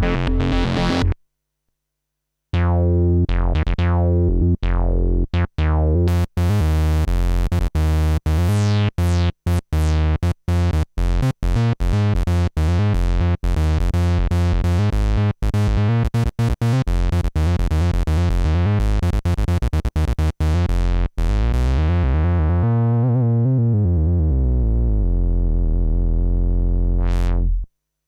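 Korg monologue monophonic analog synthesizer playing a bass-heavy run of short, choppy notes with sweeping filter changes. It drops out for about a second near the start. Toward the end the sound loses its brightness as the filter closes, and it stops just before the end.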